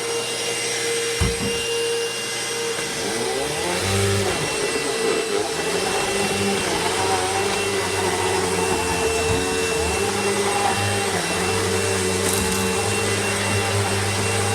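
Royal ProSeries Quick Rewind vacuum cleaner running with a steady motor whine, with a low thump about a second in. From about four seconds in, the lower hum wavers up and down in pitch.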